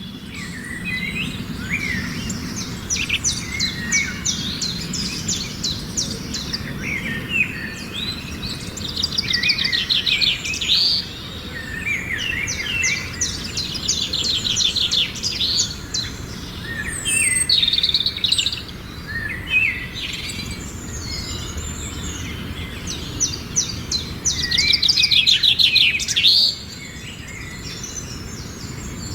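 Several birds chirping and singing together in a busy chorus of rapid trills and short rising and falling whistles, over a low steady background noise.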